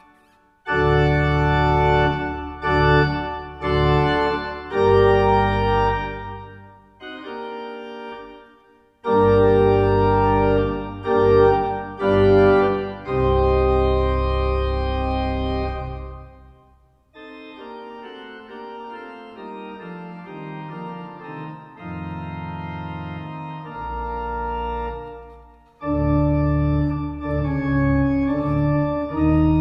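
Organ music: sustained chords over a deep bass line, played in phrases broken by short pauses. A quieter, softer passage fills the middle, and the full sound returns near the end.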